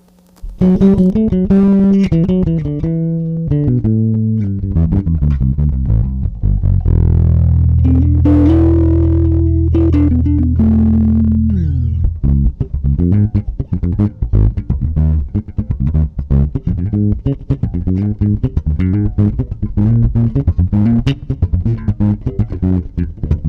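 Ibanez SR Mezzo 200 four-string electric bass played with both pickups and all controls full up, treble at maximum. A run of notes steps down in pitch, a few notes are held ringing for about five seconds in the middle, then a fast run of short notes follows.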